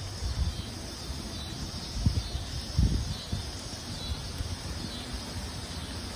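Strong storm wind gusting through trees, with gusts buffeting the microphone as low rumbles, loudest about two and three seconds in.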